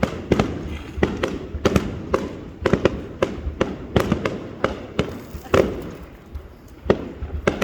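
Fireworks display: aerial shells bursting in a rapid, irregular string of sharp bangs, two or three a second, easing briefly in the second half before picking up again.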